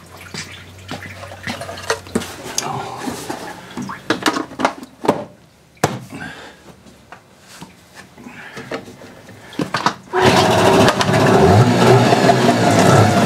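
Knocks and clicks of the cowling being fitted onto a Yamaha 15 hp two-stroke outboard. About ten seconds in the outboard starts and runs loudly, its pitch rising as it is throttled up.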